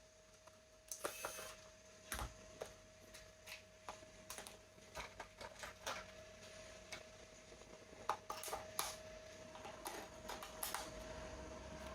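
Scattered light clicks and short rustles of small plastic toy parts and packaging being handled, over a faint steady hum.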